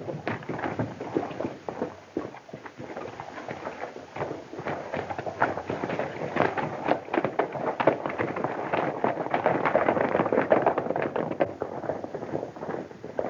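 Hoofbeats of several horses galloping: a dense, irregular clatter that grows louder toward the middle and eases a little near the end.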